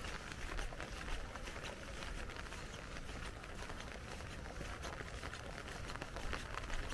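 Rain pattering on an umbrella: a dense, irregular stream of small drop ticks, with a low rumble underneath.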